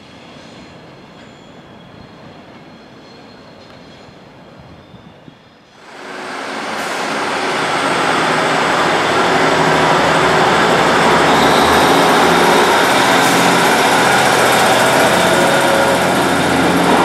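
A faint electric train approaching, then, after a sudden cut about six seconds in, a ScotRail diesel multiple unit close by moving off. Its diesel engine runs under power, swelling over a couple of seconds and then holding steady and loud.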